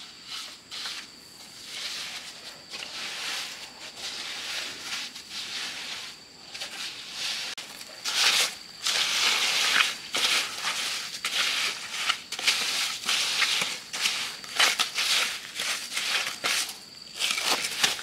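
Irregular gritty scraping and crunching in quick, uneven strokes, getting louder and busier about halfway through.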